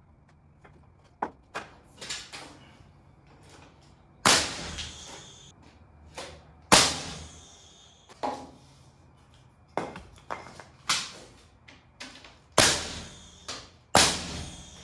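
Pneumatic nail gun firing nails into the wooden frame: a series of sharp shots a second or more apart, four of them loudest, with lighter knocks of wood between.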